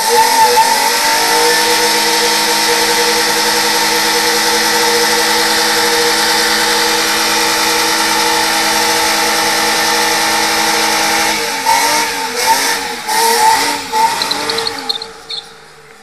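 BMW 523i's straight-six engine, run without a catalytic converter, revs up hard and holds high revs steadily with a hissing tyre squeal, as in a burnout. About eleven seconds in it drops and is blipped unevenly for a few seconds, then fades near the end.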